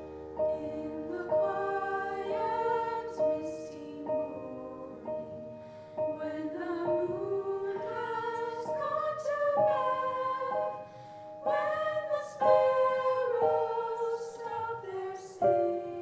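School chorus of young voices singing a slow song to piano accompaniment, the piano chords struck about once a second under the sung line.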